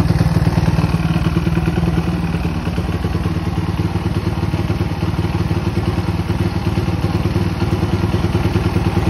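Zongshen ZS190 190cc single-cylinder four-stroke engine in a mini motorcycle, idling steadily, exhausting through an aftermarket muffler fitted with a baffle (dB killer).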